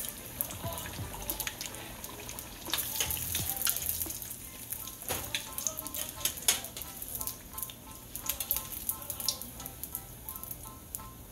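Egg rolls deep-frying in hot oil in a stainless steel pot: a steady sizzle full of sharp crackles and pops, which thin out in the last few seconds.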